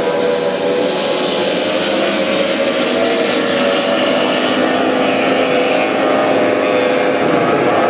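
Racing outboard engines of several Formula One tunnel-hull powerboats running at high revs together: a steady, loud drone in which a few engine pitches sit close together and drift slightly up and down.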